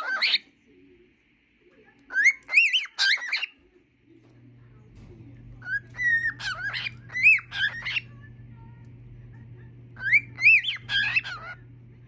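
Cockatiel whistling its song in three warbling phrases with short gaps between them. A steady low hum starts about four seconds in and runs under the later phrases.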